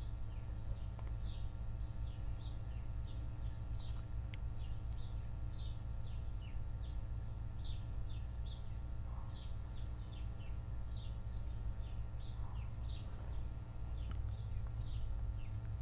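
Small birds chirping: a continuous series of short, high, down-slurred chirps, several a second, over a steady low rumble.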